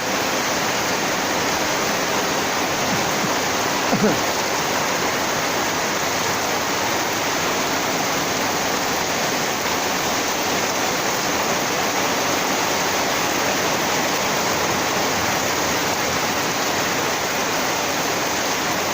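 Heavy rain falling, a steady even hiss that does not let up. About four seconds in there is a brief short call or cry over it.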